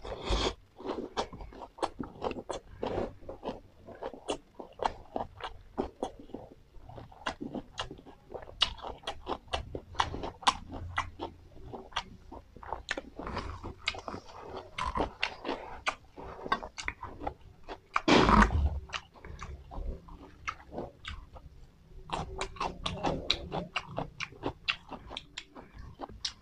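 Close-miked chewing of a mouthful of fresh raw herbs and lettuce, a long run of irregular crisp crunches and wet mouth clicks. One louder burst of sound comes about two-thirds of the way through.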